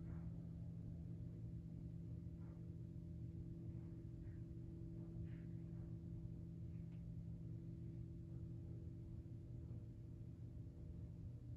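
A faint, steady, low drone like a singing bowl or gong, held on one pitch with its octave, cutting off shortly before the end. Soft breaths are heard now and then underneath.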